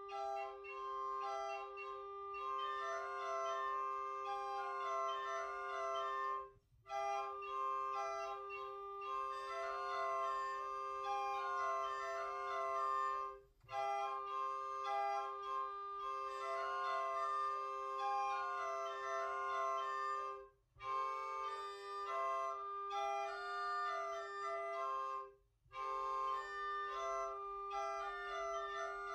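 Handmade bellows-blown medieval portative organ with metal pipes playing a melody over one held low drone note. The sound stops dead four times, briefly, between phrases.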